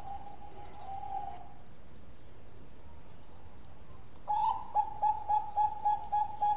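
A caged Bangkok zebra dove (perkutut) cooing: a held note fades out in the first second or so. About four seconds in, it starts its song, a rapid run of short cooing notes at about four a second.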